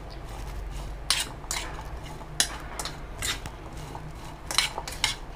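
A spoon clinks against a white ceramic bowl as sliced cucumber is tossed with salt. The clicks are sharp and come one at a time, about once a second.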